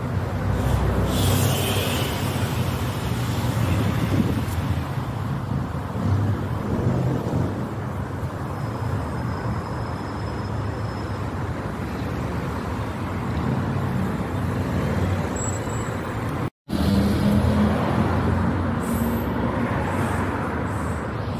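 Street traffic: cars and vans running past with a steady road rumble and low engine hum. The sound cuts out for a split second about two-thirds of the way through.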